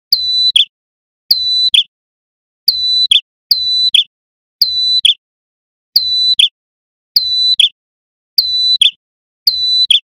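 A male ashy tailorbird (prenjak kepala merah) calling loudly. Each call is a shrill whistled note held level and then flicked down at the end, repeated nine times, roughly once a second.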